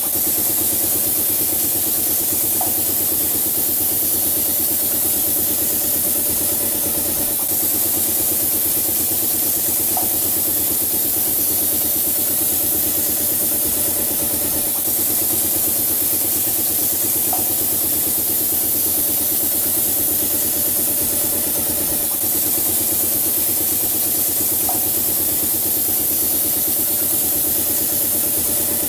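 Automatic wall-painting machine running: a steady mechanical hum with hiss, and a short faint blip about every seven seconds.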